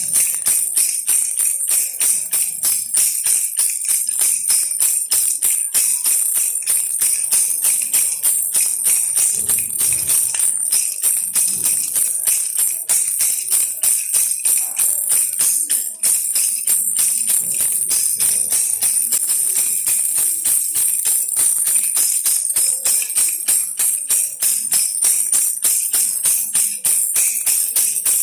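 Baby rattle shaken steadily in an even rhythm, several bright jingling shakes a second.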